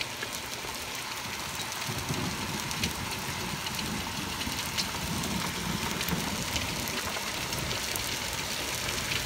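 Hail coming down hard: a steady hiss of hailstones with many sharp ticks as individual stones strike. A low rumble joins from about two seconds in and carries on under the hail.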